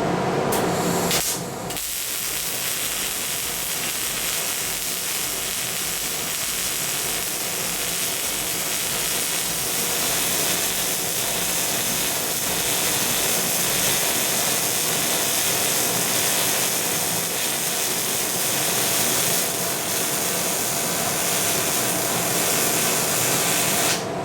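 Welding arc from the torch of a Rail Bull rail-guided welding carriage running a weld: a steady hissing noise with a brief dip about a second and a half in.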